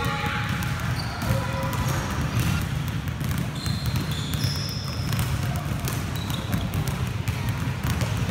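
Several basketballs dribbled at once on a hardwood gym floor: a dense, overlapping stream of bounces with no let-up.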